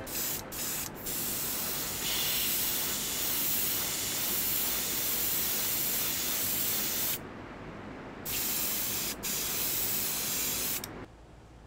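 Airbrush spraying paint onto a diecast car body: a few short hisses, then a steady hiss. It pauses about seven seconds in, resumes with a brief break, and stops just before the end.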